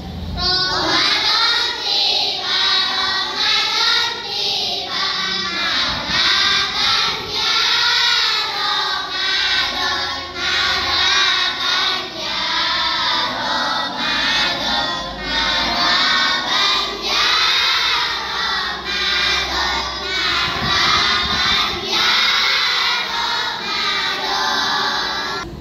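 A class of young children singing together in chorus, many voices at once, carrying on without a break and stopping at the end.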